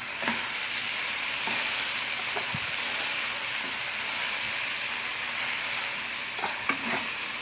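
Noodles, cabbage and chicken for chow mein sizzling in a hot pan as they are stir-fried together: a steady frying hiss with a few light clicks.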